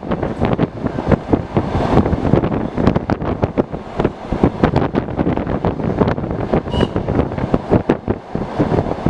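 Electric commuter train running at speed, heard from its window, with wind gusting hard on the microphone. A short high tone sounds once near the end.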